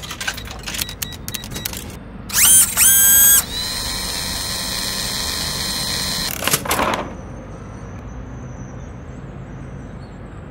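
Mechanical sound effects: rapid clicking, then two loud rising whines, a steady electric hum for about three seconds, and a short rattle, followed by low hiss.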